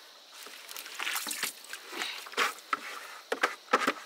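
Water sloshing and splashing, mixed with irregular knocks and clinks of a pot or utensils. It grows busier after the first half-second, with a few sharper knocks near the end.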